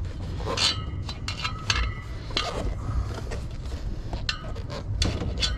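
A string of sharp metallic clinks and knocks, some ringing briefly, as metal tools and parts knock together while the rear wheel and inner tube are fitted.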